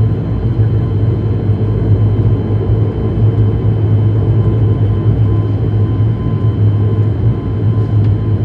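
Turboprop airliner's engines running steadily, heard from inside the passenger cabin: a constant loud drone with a strong low hum, holding steady without building up.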